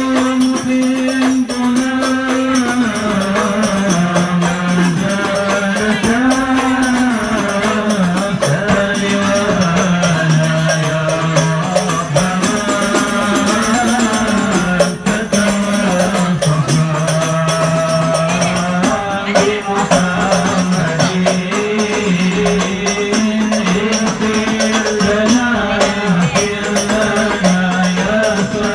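Men chanting a devotional song of praise (selawat) to the beat of hand frame drums (rebana/kompang), the sung melody moving in slow steps without a break.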